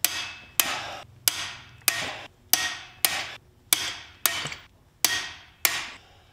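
Tekton click-type torque wrench clicking about ten times at a quick, slightly uneven pace, each sharp click followed by a short ring, as one lug nut after another reaches the set 130 ft-lb.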